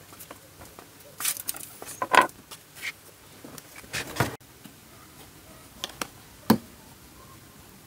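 Scattered short knocks, clicks and brief scrapes of objects being handled, with the sound cutting off abruptly about four and a half seconds in.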